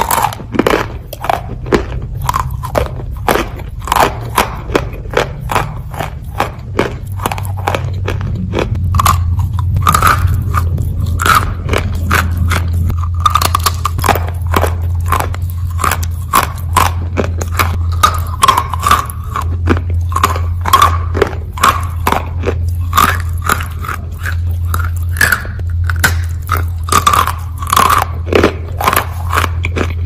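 Dry, hard edible clay (Turkistan white) being bitten and chewed in close-up: a rapid, irregular run of loud crunches and crackles. A steady low hum comes in underneath after several seconds.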